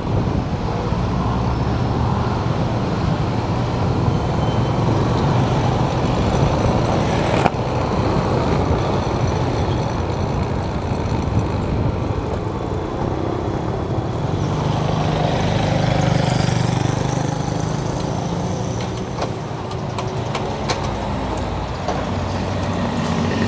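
Motorcycle running on the road, its engine hum and road noise steady, with other traffic around it.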